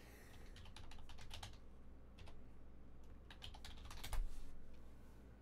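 Typing on a computer keyboard: short runs of key clicks with pauses between, the heaviest stroke a little after four seconds in.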